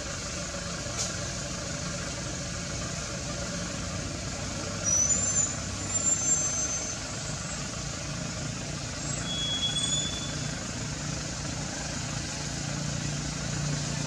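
A steady low engine-like hum that swells slightly near the end, with a few short, high-pitched squeaks about five to seven seconds in and another near ten seconds.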